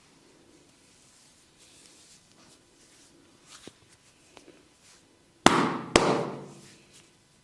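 Two sharp, loud cracks about half a second apart during a barber's head and neck massage, each trailing off over about a second, after several seconds of faint light handling noises.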